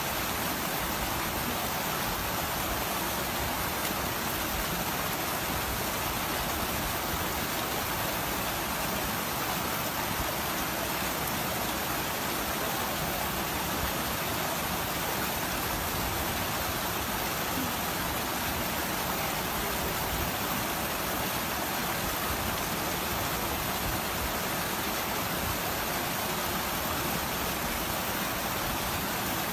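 A steady, unchanging rushing hiss that spreads evenly from low to high pitch, with no gusts or breaks.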